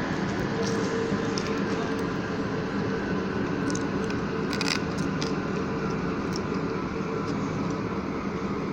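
Volkswagen Constellation 24.250 truck's diesel engine and driveline running steadily at a constant pitch, with a few light clicks about halfway through. The truck's differential pinion bearing is broken.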